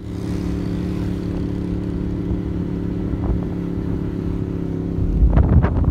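Motorcycle engine running at steady revs while riding, an even hum at one constant pitch. Wind buffeting on the microphone comes back about five seconds in.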